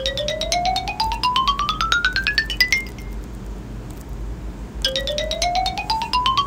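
A ringtone playing as a preview on an iPhone: a rapid run of short chiming notes climbing steadily in pitch for about three seconds. It stops, then starts again from the low note about two seconds later.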